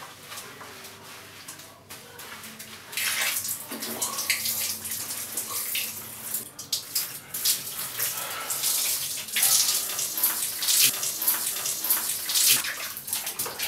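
Shower water spraying and splashing on a person, turning much louder about three seconds in and rising and falling unevenly after that.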